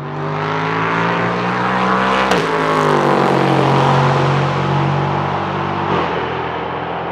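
Ligier JS P320 LMP3 race car's Nissan VK56 5.6-litre V8 at full throttle, passing and pulling away. The engine note climbs, drops sharply on an upshift about two seconds in, climbs again, and drops once more near six seconds.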